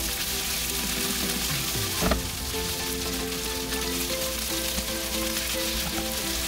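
Beef strips sizzling steadily in hot oil in a frying pan while being stirred with a spatula, with one sharper clack about two seconds in.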